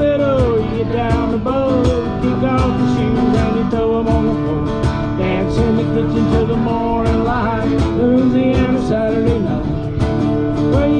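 Live country band playing an instrumental break on guitars, with a lead line of bending notes over a steady beat.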